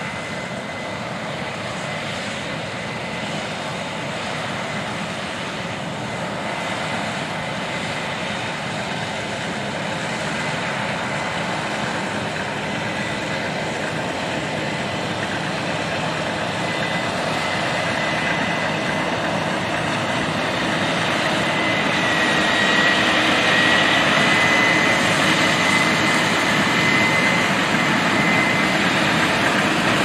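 Case IH 8240 combine running while harvesting soybeans: a steady drone of engine and threshing machinery with a thin, high whine, slowly getting louder.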